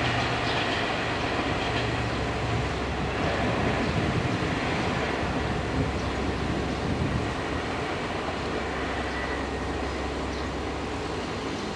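JR Shikoku 2000 series diesel train approaching on the rails: a low engine hum that drops away about two and a half seconds in, then a steady rumble of wheels on track.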